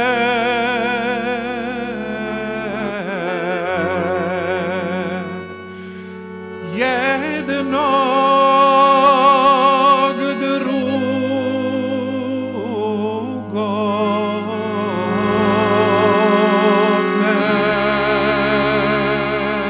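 A man singing a Bosnian sevdalinka with a wide vibrato, accompanied by a piano accordion holding chords and bass notes. The voice drops back briefly about six seconds in, then returns stronger on a long high held line.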